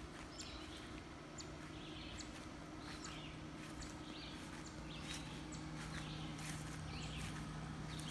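Faint footsteps on lawn grass at a walking pace, about two steps a second, over a steady low hum.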